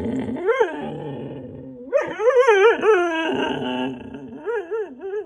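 Husky "talking": a run of drawn-out vocal moans whose pitch swoops up and down, a rising call at the start, a long quickly wavering stretch about two seconds in, then a few short wavy notes near the end. It is a dog's vocal protest at being refused food.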